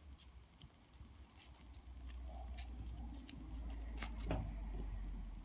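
Light rustling and scattered soft clicks from hands handling a bundle of wrapped tassel thread and its cardboard card. Two sharper clicks come about four seconds in, over a low rumble that grows through the second half.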